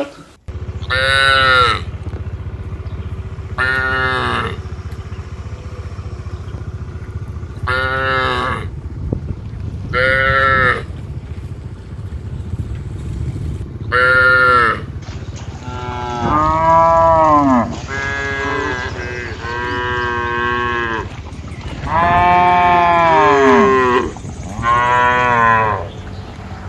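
Cattle mooing again and again, about eleven calls, over a steady low rumble. The calls in the second half are longer and rise and fall in pitch.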